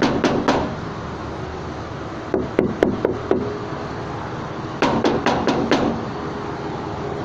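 Knuckles knocking on the side door of a Toyota Liteace van, in three quick runs of four or five knocks each: the door before soundproofing.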